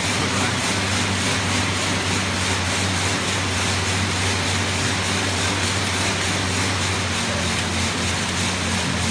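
Air bike's fan whooshing steadily with a low drone, driven hard by pedals and pumping arm handles in an all-out calorie sprint.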